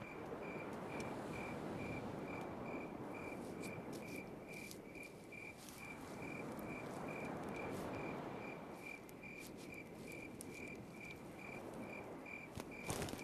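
Cricket chirping at a steady rhythm, about two to three short high chirps a second, over a soft, wavering hiss with a few faint ticks.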